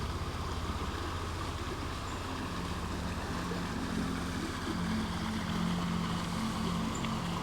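Steady rush of a small creek's flowing water, under soft background music holding low sustained notes.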